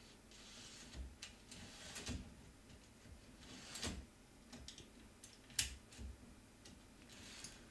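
Faint clicks, taps and scrapes of an MGN12 steel linear rail and its carriage being slid along and fitted onto an aluminium extrusion by hand, with one sharper click a little past halfway.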